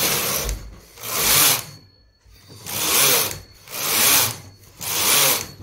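Hand-operated domestic knitting machine carriage pushed back and forth along the needle bed, knitting row after row: a rising and falling mechanical rasp with each pass, about one pass a second, five passes in all.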